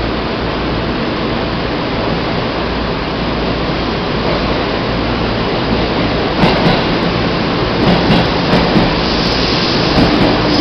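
Steady, loud noise of a stopped Seibu New 2000 series electric train beside the platform, heard while its side destination roll sign scrolls; from about six and a half seconds in, scattered light knocks and clicks.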